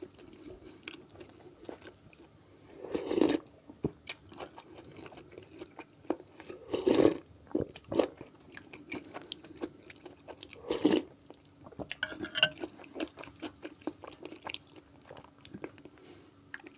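Close-up eating sounds: chewing with small wet clicks from the mouth, and three louder slurps of cold okroshka soup from a spoon, about four seconds apart.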